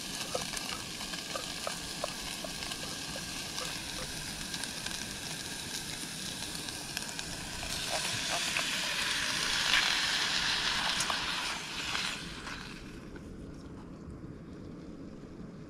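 Canned chicken and vegetables sizzling in a pot over a stove, with small clicks and scrapes of stirring. The sizzle grows louder about eight seconds in and dies down about twelve seconds in.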